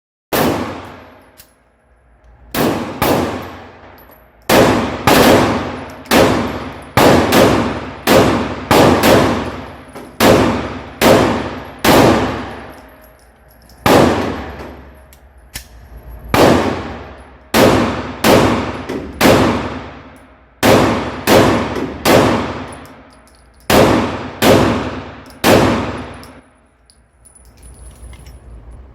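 A long string of shots from a Glock 17 9mm pistol, about thirty in all, fired in quick pairs and runs with short pauses between, each shot ringing out for about a second.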